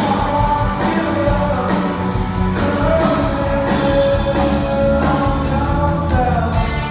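Live rock song with a full band and a singer holding long, sustained notes, heard as a concert recording.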